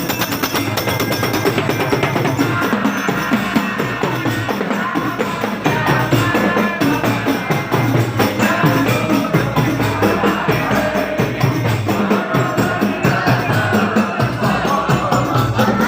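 Percussion music from a hand-drum ensemble: frame drums and jingling tambourines beating a busy, continuous rhythm, as played by a rebana (hadroh) group at a maulid.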